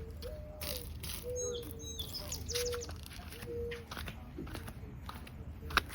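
A dove cooing: a series of low, hollow notes about half a second each, the second pitched higher than the rest, with faint higher bird chirps around it. A sharp click near the end.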